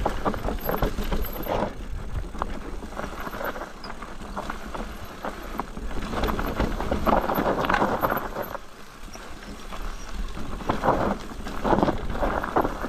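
Electric mountain bike riding down a rough trail: tyres crunching over stones and gravel, with clicks and rattles from the bike coming in uneven surges.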